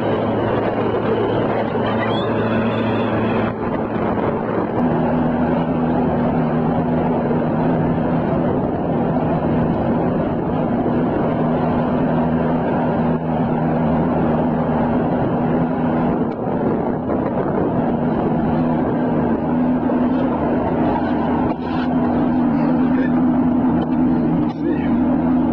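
Motorboat engine running steadily under way, with the rush of wind and water over the hull; the engine's note shifts about four seconds in and then holds steady.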